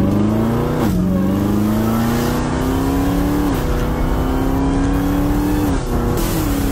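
Dodge SRT Hellcat's supercharged V8 heard from inside the cabin, accelerating along the road: the engine note climbs slowly and drops back at upshifts about a second in, midway, and again near the end.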